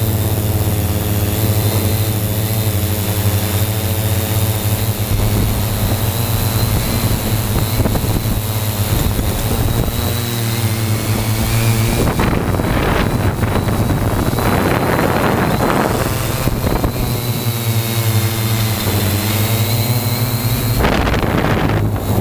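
3DR Y6 coaxial hexacopter's electric motors and 15-inch propellers droning, heard from the GoPro on board, with a thin high whine over the top and the pitch shifting a little as the craft manoeuvres. Gusts of wind noise on the microphone rush in about halfway through and again near the end.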